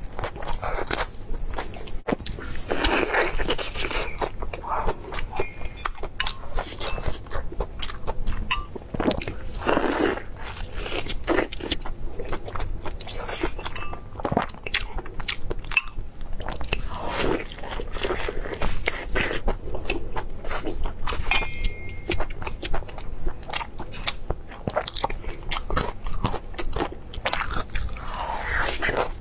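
Close-miked eating: biting into and chewing sauce-coated meat, with a steady run of short, sharp wet clicks and crunches.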